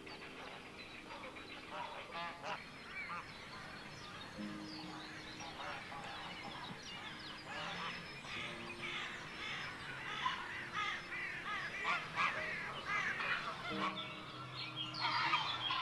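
A crowd of water birds calling at once, a dense chorus of honking calls that builds up a few seconds in and is thickest in the middle and near the end.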